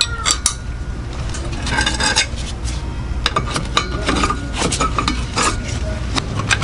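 Combination wrenches clinking against the drive shaft flange bolts as they are worked loose: a scattering of short, sharp metal clicks at uneven times over a steady low hum.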